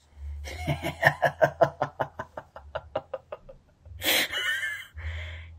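A man laughing: a fast run of "ha" pulses that slows and fades over about three seconds, then a breathy gasp and a hissing breath out.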